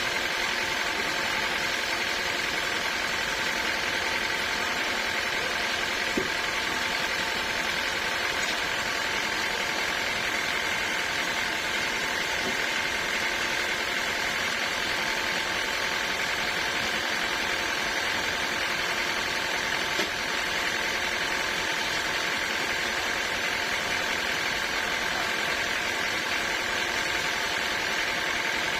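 Sawmill machinery running steadily: a constant mechanical hum with a steady whine, and a light click about six seconds in and again about twenty seconds in.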